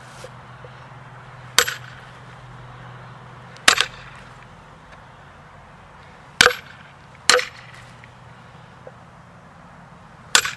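Hatchet blade chopping into the end grain of a maple log, five sharp strikes spaced irregularly one to two seconds apart. It is scoring the split line so a wedge can be driven in and the split guided.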